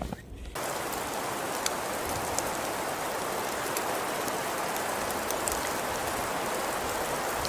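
Rain falling steadily: an even hiss with scattered sharp ticks of drops, starting abruptly about half a second in.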